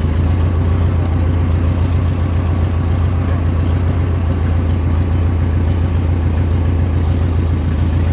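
Old JCB digger's diesel engine idling steadily, with a low, even hum.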